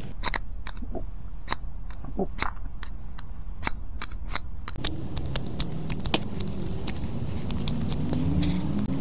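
Steel striker scraped again and again down a metal-match fire-starter rod: a quick, irregular run of short scrapes, shaving off powder and throwing sparks onto tissue.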